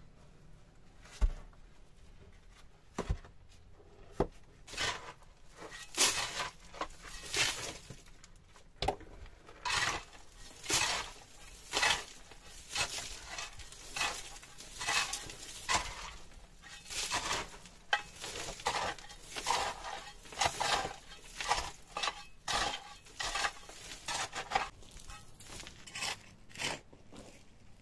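Gloved hands scraping and scooping loose dirt and stones from a rocky cave floor, with stones clinking together. A few sharp knocks in the first few seconds, then a steady run of scrapes about one a second.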